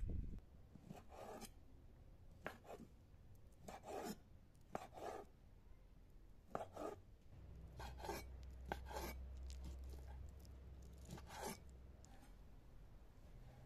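Chef's knife dicing raw lamb heart on a stone slab: short cutting and scraping strokes with a light knock of the blade on the stone, often in pairs, every second or two.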